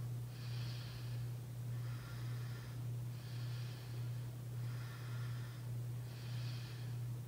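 A person breathing audibly through the nose close to the microphone, in and out about every second and a half, over a steady low electrical hum.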